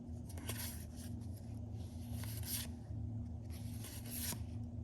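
Magic: The Gathering trading cards sliding against one another as a pack is flipped through card by card: three short rubbing swishes, about a second and a half apart, over a low steady hum.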